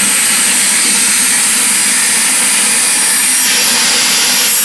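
Wet/dry shop vac running loud and steady, sucking the water out of a toilet bowl and tank.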